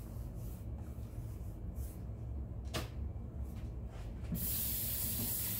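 Kitchen tap turned on about four seconds in, water running steadily into the sink for hand-washing. Before it, faint handling noises and a single click over a low hum.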